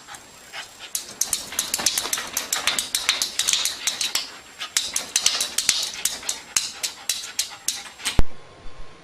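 Rapid, irregular clicking and tapping, several strikes a second, then one loud sharp knock about eight seconds in.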